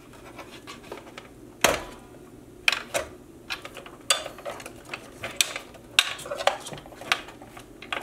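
Scattered light clicks and rubbing of a plastic cable connector and wires being unplugged and pulled loose inside a desktop PC case, the sharpest click about a second and a half in.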